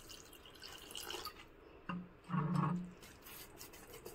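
Water being poured into a bowl of semolina dhokla batter, faint at first, with a louder stretch about two seconds in.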